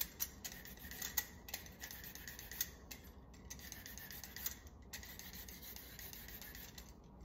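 Pampered Chef vegetable peeler scraping along a raw carrot in quick repeated strokes, about two a second, shaving off strips of peel. The blade cuts in both directions.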